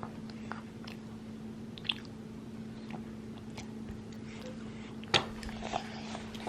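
A small child biting and chewing food, with soft mouth clicks and a couple of sharper smacks. A steady low hum runs underneath.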